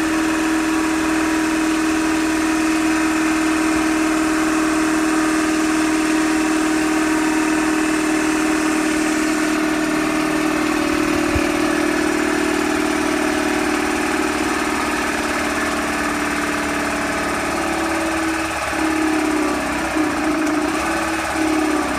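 Electric air compressor running steadily while pumping up its empty tank, a loud even hum that turns wavering and uneven near the end.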